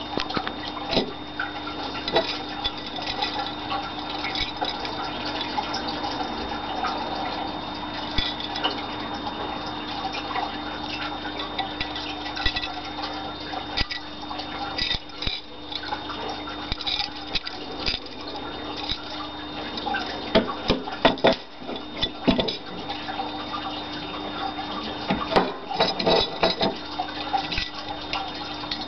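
Handling noise from a dagger in an embossed metal scabbard turned in the hand: scattered light clicks and small metallic taps, more frequent in the second half, over a steady background hum.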